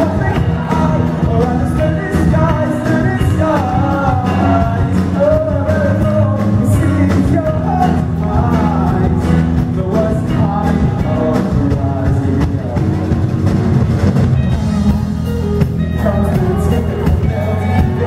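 Live rock song: a male singer singing into a microphone over strummed acoustic guitar.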